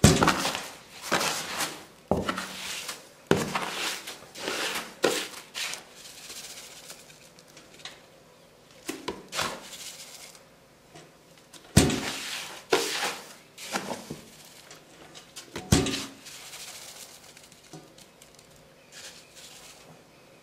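A slotted plastic scoop scraping through clumping cat litter in a plastic litter box and shaking loose grains out through its slots while urine clumps are lifted out. It makes a series of irregular gritty scrapes and rattles with short pauses between them.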